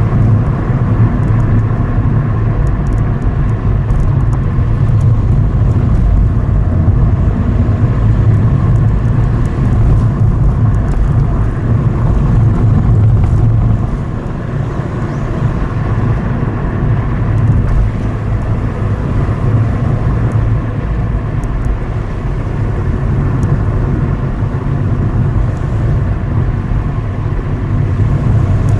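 A car driving along a road: steady engine and tyre noise, a little quieter from about halfway through.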